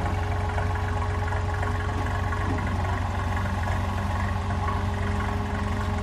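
Straight-piped AEC AH-690 six-cylinder diesel of a 1957 Brill CD-52 bus idling steadily with its muffler removed, a low, even exhaust pulse.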